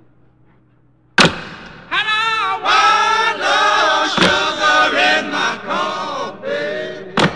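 Closing song with sung vocals. A quiet first second is broken by a sharp hit, and the singing starts soon after. Two more sharp hits fall about halfway through and near the end.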